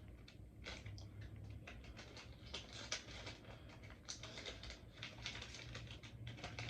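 Plastic wrapper of a trading-card promo pack crinkling and tearing as it is opened by hand: a quick, irregular run of small crackles and rustles.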